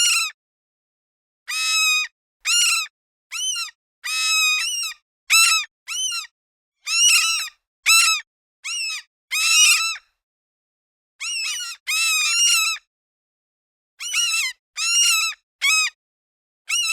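Seagulls calling: a run of about fifteen short calls, one after another with short silent gaps between them. Each call rises and then falls in pitch.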